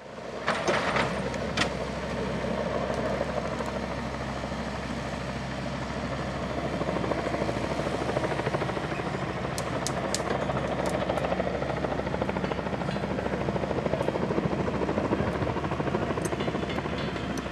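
Hitachi hydraulic excavator's diesel engine running steadily as it swings its boom and grapple to lift a log, swelling a little under load, with a few sharp clicks about a second in and again around ten seconds in.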